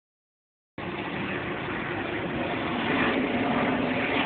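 Steady engine and vehicle rumble, growing slowly louder, starting abruptly just under a second in.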